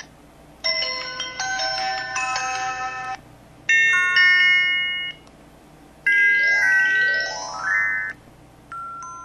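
MS280 mobile phone playing its built-in ringtone and effect sounds one after another through its speaker. There is a short chiming electronic melody, then a brief jingle, then a quick rising run of notes, and a short two-tone beep near the end, each separated by a short pause.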